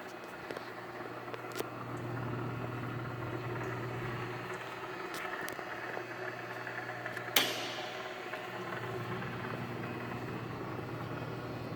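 Steady electrical hum of a running Lucifer electric heat-treat furnace, its lower chamber's circulating fan going, with a sharp click about seven seconds in.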